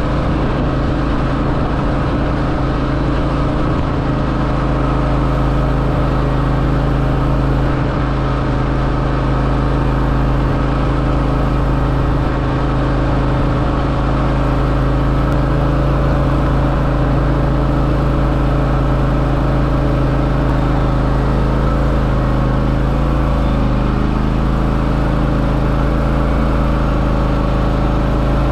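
John Deere X570 garden tractor's engine running steadily at a constant pitch.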